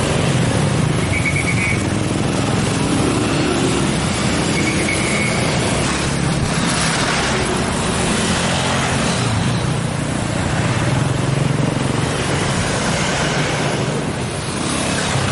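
Congested street traffic: motorcycle and car engines running and passing in a steady din, with two short high beeps about a second and five seconds in.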